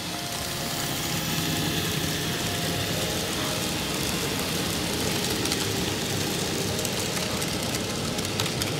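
N scale model freight train running past, a steady rattling hum of small wheels and motor on the track that grows louder about a second in as it comes close.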